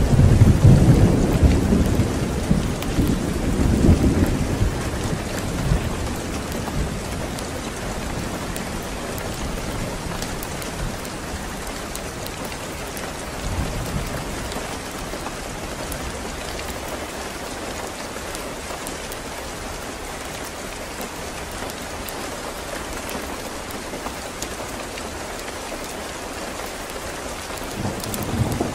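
Steady rain with thunder: a loud rolling rumble over the first few seconds that fades away, a short low rumble about halfway through, and another rumble building near the end.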